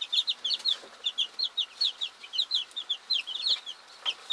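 Young white chickens peeping: a rapid run of short, high, downward-sliding peeps, several a second, from a few birds at once.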